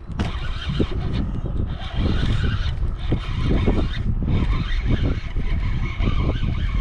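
Steady wind rumble on the microphone, with a baitcasting reel being cranked to bring in a hooked fish.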